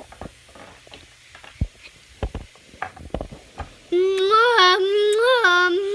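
A few light knocks and taps as small toys are handled on a wooden surface, then, about four seconds in, a child's voice humming a wavering tune, the loudest sound.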